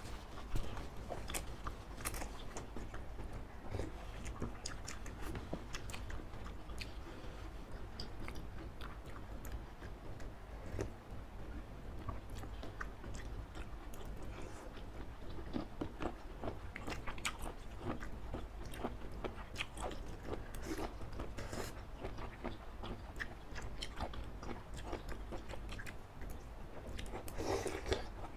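Close-miked eating sounds from two people slurping instant noodles in spicy broth and chewing, with many short wet mouth clicks and smacks and a longer slurp near the end.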